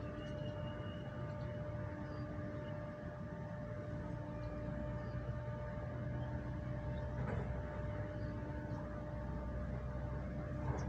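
Steady city background noise: a low rumble that grows a little louder partway through, with a constant mechanical hum on one steady pitch.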